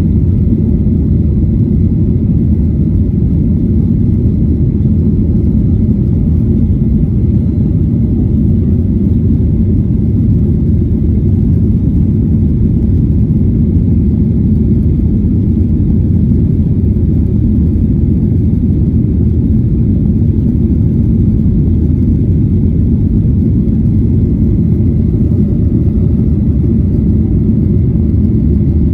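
Jet airliner cabin noise: a steady, even low rumble of the engines and airflow heard from inside the cabin.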